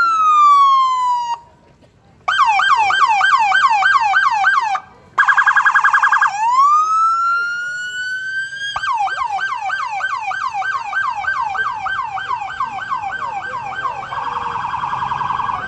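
Police car's electronic siren cycling through its tones: a wail falls and cuts off about a second in, then after a short pause it yelps at about three sweeps a second, switches briefly to a faster warble, rises in a long wail, and goes back to yelping. Near the end it turns to a rapid warble.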